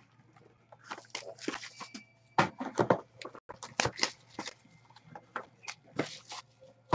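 Hands handling a trading-card box and its cards: an irregular run of short rustles, clicks and taps, several a second.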